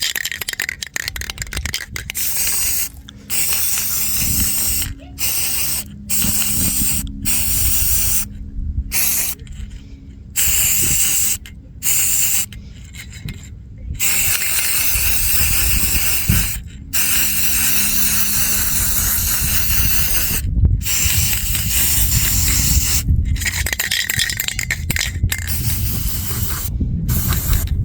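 Aerosol spray-paint can hissing in repeated bursts, some under a second and others several seconds long, each cut off abruptly between passes. A faint steady low hum runs underneath.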